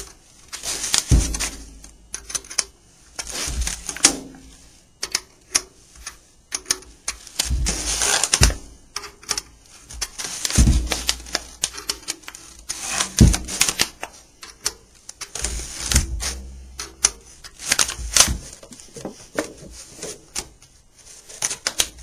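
Irregular metallic clicks and clacks from the banjo's bracket hooks and nuts being worked and tightened around the rim to draw the new head down, with rustling of the sheet laid over the head and a few dull thumps from handling the rim.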